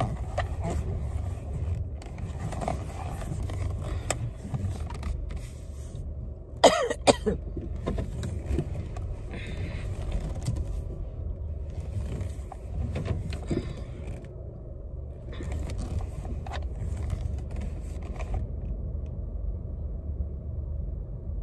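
Steady road and engine rumble inside a moving car, with a few sharp knocks about seven seconds in.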